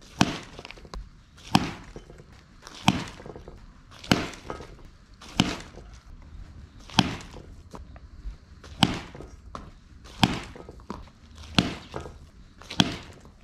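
Youth baseball bat hitting balls in quick succession during batting practice: about ten sharp cracks, one every second and a half or so.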